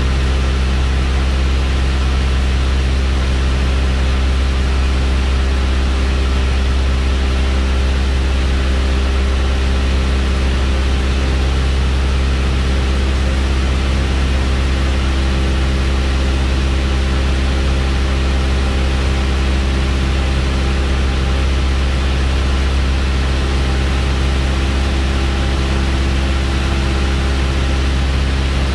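A light aircraft's engine and propeller drone steadily in cruise, heard from inside the cockpit with rushing air noise, holding one pitch throughout.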